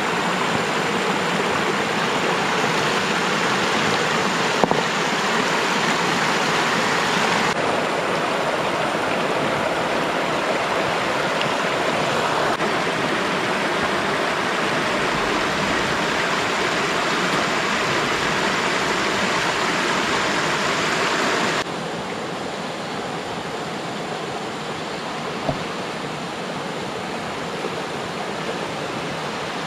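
Shallow, rocky river rushing steadily as water spills over a line of stones in small rapids. The rush becomes quieter about two-thirds of the way through.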